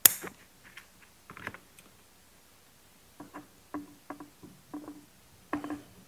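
Light clicks and taps of hand tools and plastic fuel line being handled on a workbench. A sharp click comes right at the start, then a run of small ticks in the second half.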